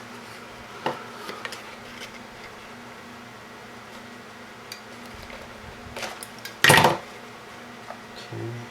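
Wires and small parts being handled on a workbench: a few light clicks and taps, then one louder clatter about seven seconds in, over a steady low electrical hum.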